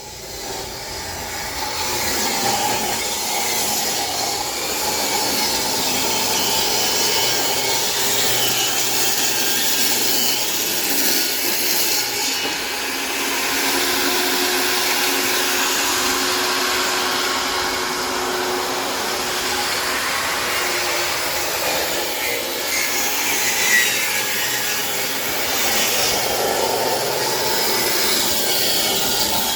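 Table saw running as it cuts 2x4 lumber: a steady noise that builds over the first couple of seconds and then holds level.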